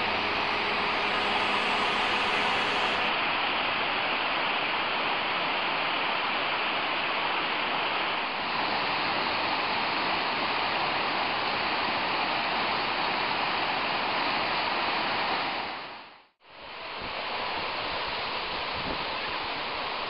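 Mele Cascades waterfall: water rushing steadily over rock steps and falling into pools, a constant even rush of water. About three-quarters of the way through, the sound fades out for a moment and comes straight back.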